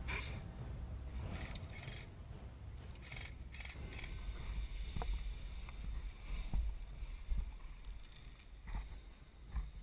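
Low wind rumble and handling noise on a body-worn camera microphone, with scattered rustles and a few sharp clicks.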